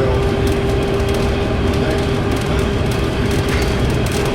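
Red Rattler electric suburban train in motion: a steady loud rumble with scattered rattles and clicks from the running gear. A steady hum fades out about halfway through.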